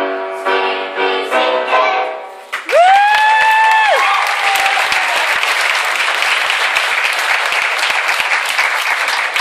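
A song with children singing ends about two and a half seconds in. An audience then breaks into loud applause, with a long high cheer over the first second of it, and the clapping keeps going.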